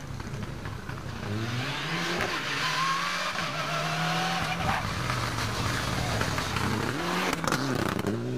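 Rally car engine revving hard as the car comes past at full throttle. It holds high revs, then dips briefly near the end, as at a lift or gear change, before pulling up again.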